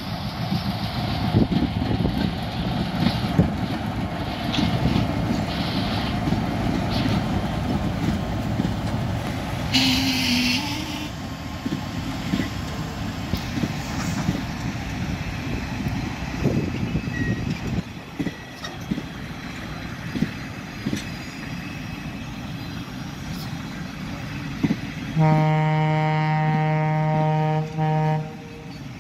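Two ALCO diesel locomotives hauling passenger coaches pass by with a dense, steady rumble of engines and wheels on the rails, which fades as the coaches roll by. About 25 seconds in, a train horn sounds one long, steady blast of about three seconds.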